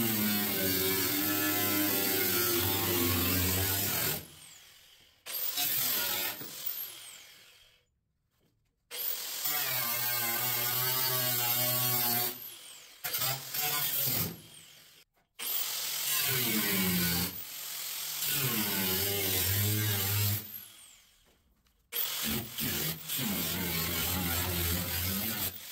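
Power tool cutting through the truck's old sheet-metal quarter panel, running in several stretches of one to five seconds with short stops between, its pitch wavering as it bites.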